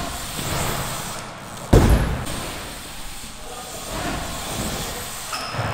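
BMX bike tyres rolling on a concrete bowl, with one hard thump of the bike hitting the concrete a little under two seconds in, echoing in a large hall.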